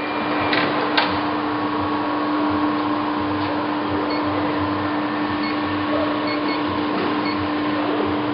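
Clausing Colchester engine lathe running at a steady speed: a constant hum with a fainter higher whine over a mechanical hiss, after two short clicks within the first second as it is set going.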